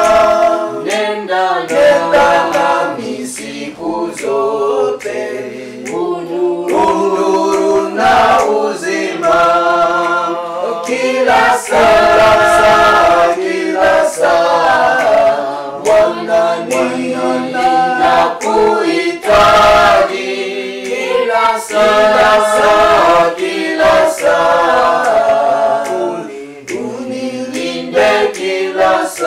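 A choir singing a Swahili hymn a cappella in several voice parts, phrase after phrase with short breaths between lines.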